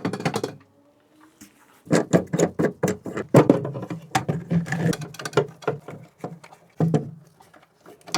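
Hands handling hardware and its packaging: a dense run of crackling, rustling and small clicks and knocks, busiest in the middle and dying away near the end.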